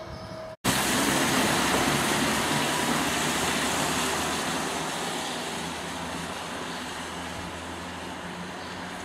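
Road traffic: a vehicle's engine hum and tyre hiss on a wet street, starting suddenly and loud, then fading slowly over several seconds.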